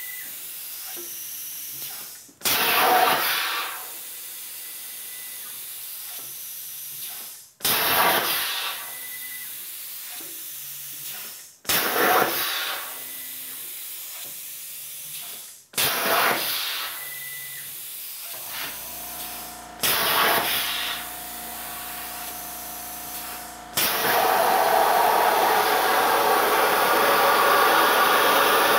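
Hypertherm Powermax 30 XP plasma cutter on a CNC table: a series of rushing air hisses, each starting suddenly, settling to a steady hiss and cutting off after about four seconds. Then a low motor hum, and about five seconds before the end the plasma arc starts cutting the powder-coated steel with a loud steady hiss.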